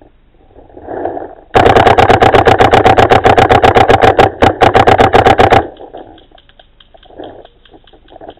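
Paintball gun firing a long rapid string of shots, about ten a second, starting about a second and a half in and stopping abruptly after about four seconds.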